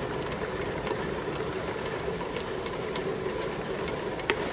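Baseball stadium crowd murmuring steadily under a dome, with faint scattered claps and one sharp crack a little over four seconds in.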